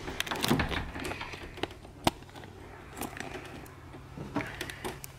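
Small metal clicks and rattles of an interior doorknob being worked from outside to open a locked door, with one sharp click about two seconds in.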